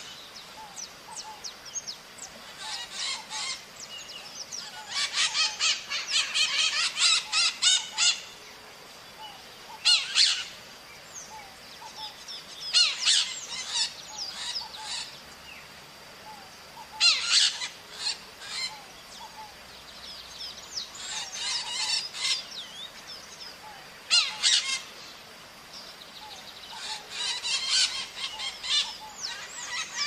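Maritacas (small green Brazilian parrots) screeching in repeated bursts of rapid, harsh calls every few seconds, several birds calling together. A faint steady high-pitched tone runs behind them from about halfway through.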